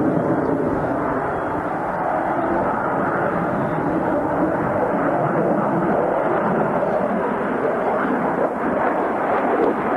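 Jet fighter's engines heard in flight as a steady, unbroken rushing noise while it manoeuvres overhead.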